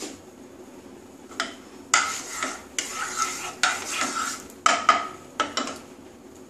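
A wooden spatula is scraped and stirred around a non-stick kadai of hot oil. It makes a run of scrapes that starts about a second and a half in and stops near the end.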